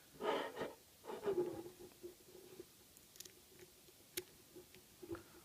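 Lock-picking tools in a padlock: scraping and rattling as the pick and tension wrench are worked at the keyway during the first second and a half, then a few sparse small metal clicks.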